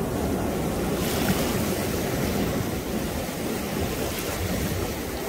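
Ocean surf: waves breaking and washing through shallow water in a steady rush, loud enough to drown out speech.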